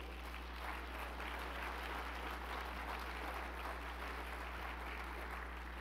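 Audience applauding: many hands clapping in a steady patter that eases off slightly near the end, over a constant low electrical hum.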